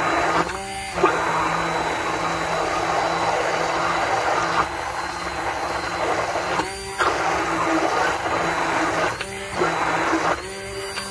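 Immersion blender running in a mason jar of eggs, oil, mustard and vinegar: a steady motor whir churning the mix as it emulsifies into thick mayonnaise. Its sound shifts briefly about a second in and three more times later as the blade head moves in the thickening mix.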